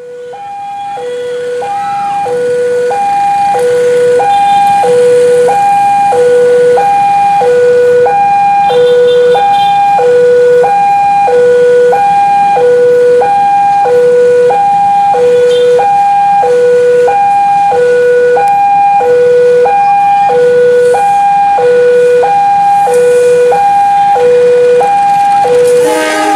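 Railway level-crossing warning alarm: a loud electronic two-tone signal, a low and a higher tone alternating about every half second, warning that a train is approaching. It fades in over the first few seconds.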